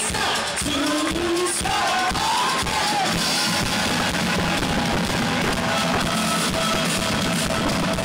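Rock music: a band with a singer, drums and guitar.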